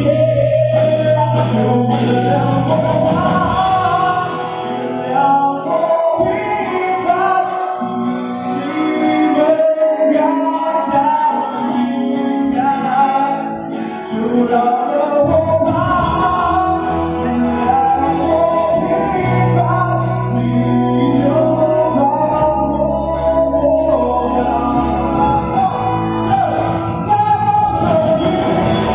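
Live rock band performing: a male singer over electric guitars and a drum kit. The band drops back briefly in the middle, then comes back in fuller.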